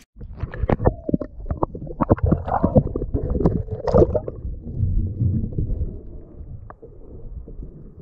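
Water splashing and gurgling as a big snapper is released over the side of a kayak, with sharp knocks through the first four seconds. About five seconds in it settles into a steadier, muffled low rumble of water around a submerged camera.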